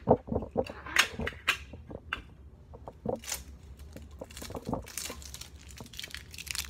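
Handling noise on the camera: a scatter of irregular clicks and taps with a few short rustles, as fingers move over the device.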